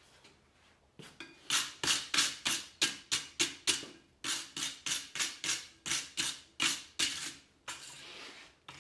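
Hand hammer striking red-hot leaf-spring steel held over a tool in a vise, forging an offset. The blows come steadily at about three a second in two runs, with a short pause about four seconds in.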